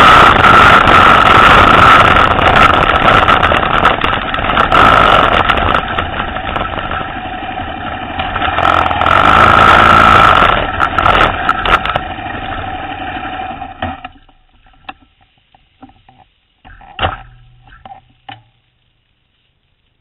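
Motorcycle engine running very loud, louder again around nine to ten seconds in, then dying away about fourteen seconds in. A few faint clicks and knocks follow before it goes quiet.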